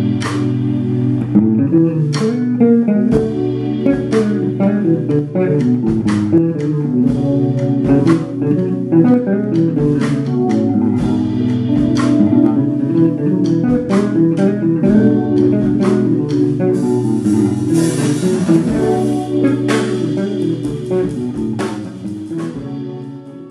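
Music with guitar, bass guitar and drums playing, fading out near the end.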